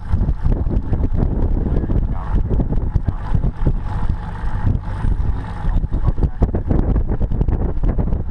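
Wind buffeting an action camera's microphone over open water: a rough low rumble, broken by many short crackles.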